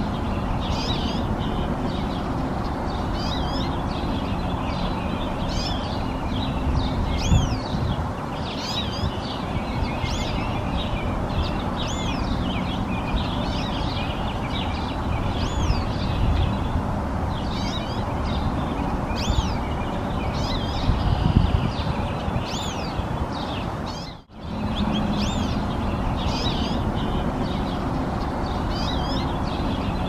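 Goldfinch (jilguerito dominico) singing: quick up-and-down whistled notes and chirps repeated every second or so, over a steady background rumble. The sound drops out for a moment about three-quarters of the way through.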